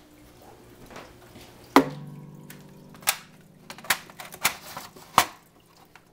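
Knocks and clicks from a home-built metal fluorescent strip-light fixture being handled and set in place on an aquarium. The loudest knock comes about two seconds in and is followed by a low steady hum, then several lighter clicks and knocks.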